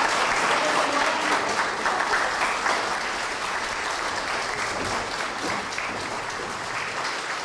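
Audience applauding in a hall, the clapping gradually dying down.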